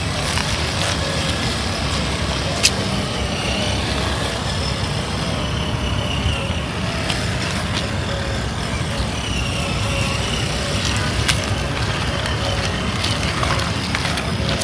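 Traxxas TRX-4 RC crawler's electric motor and gearbox whining, the pitch rising and falling with the throttle, over a steady low rumble. A couple of sharp clicks stand out, one a few seconds in and one past the middle.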